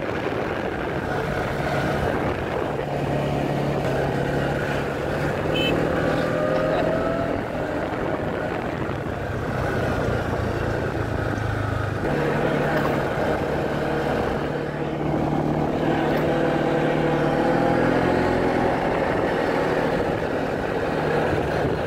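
Quad bike engine running steadily as it is ridden along a road, its pitch shifting a few times with the throttle.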